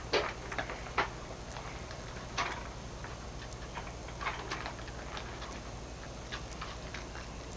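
Irregular light clicks and taps, about a dozen over several seconds, over a steady low hum.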